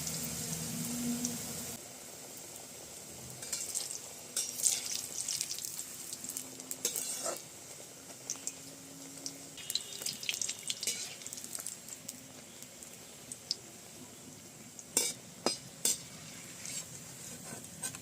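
Batter-coated bitter gourd leaf fritters sizzling and crackling in hot oil in a pan. Scattered sharp clicks and clinks of a utensil against the pan run through it, loudest about fifteen seconds in.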